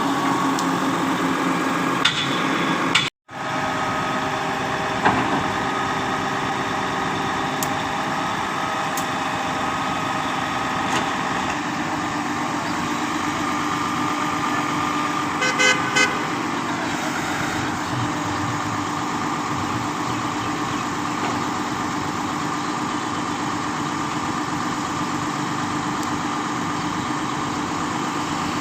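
Truck-mounted concrete pump's engine running steadily, cut off for a moment about three seconds in, with two short beeps about halfway through.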